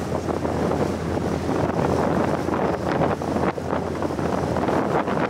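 Wind buffeting the microphone on a moving boat, a dense rush that flutters in loudness, over a steady low hum.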